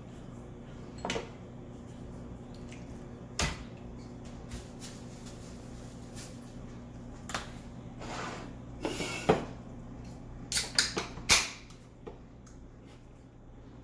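Scattered knocks and clicks of kitchen handling on a countertop over a steady low hum, ending in a quick run of sharp clicks as a beer can's pull tab is worked open.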